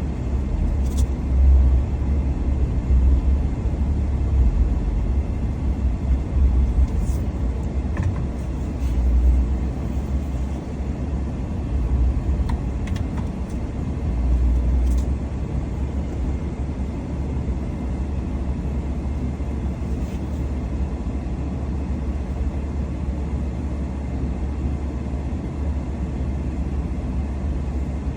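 Motor vehicle driving: a steady low rumble of engine and road noise.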